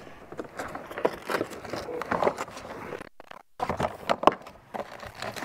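Handling noise from an Oru Lake folding kayak being assembled: rustling, light knocks and clicks of its folded plastic hull and seat parts, broken by a short dead gap a little past halfway.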